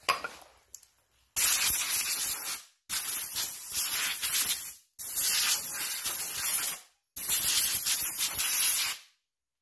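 Compressed-air blow gun blasting an ATV's front brake caliper and disc after a brake-cleaner spray-down, in four loud hissing bursts of about two seconds each with short pauses between them.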